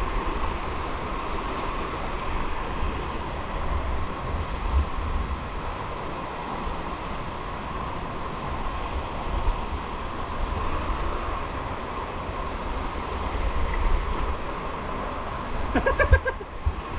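Steady rush of water in a canyon stream, with low rumbling buffets on the microphone. A brief pitched sound comes near the end.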